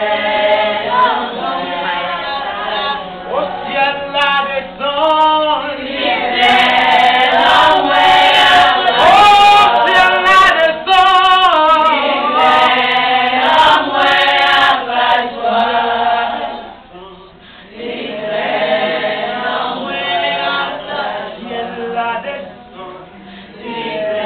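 A group of mostly women's voices singing a worship song together, the melody rising and falling. The singing drops away briefly about two-thirds of the way through, then picks up again.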